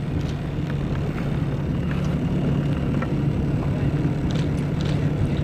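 Motor of the filming boat running steadily, a low even hum, with wind and water noise over it.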